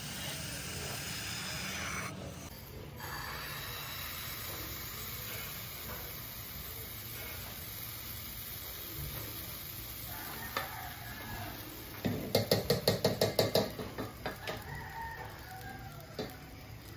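Ube pancake batter sizzling steadily in a nonstick frying pan. About twelve seconds in comes a quick run of about a dozen sharp, loud knocks, which trail off over the next second or two.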